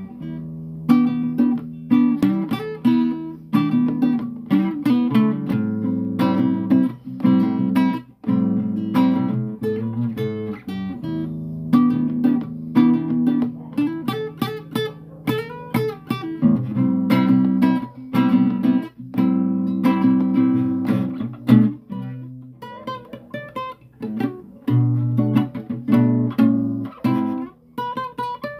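Acoustic guitar played solo, with chords strummed and plucked by the fingers.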